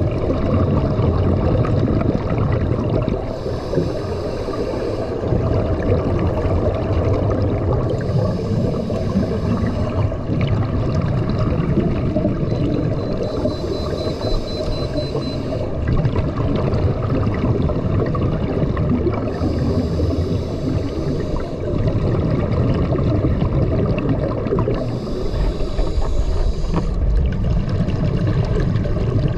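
Scuba breathing heard underwater: a regulator's exhaled bubbles hiss in bursts about every five to six seconds over a steady low rumble of water.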